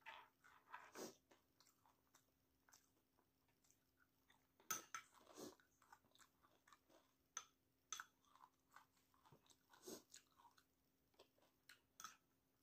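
Faint close-up mouth sounds of someone chewing battered, deep-fried quail eggs (kwek kwek): scattered soft smacks and clicks, a few louder ones about five seconds in and again near ten seconds.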